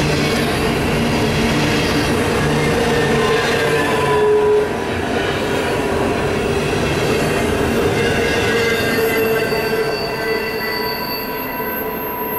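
Double-stack intermodal container well cars of a freight train rolling past close by, a steady rumble of wheels on rail with sustained squealing tones from the wheels. The sound eases somewhat as the last car goes by near the end.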